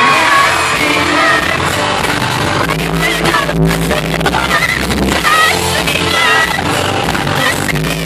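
Live pop song played loud on stage: a singer over a band with a steady drum beat, heard from within the concert audience.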